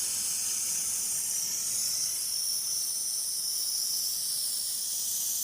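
Fibre laser welding machine welding steel plate: a steady high hiss.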